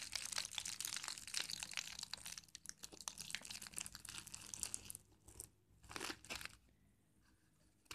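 A piece of aluminium foil being crumpled and squeezed into a ball by hand, with dense crinkling and crackling that thins to a few short crinkles after about five seconds.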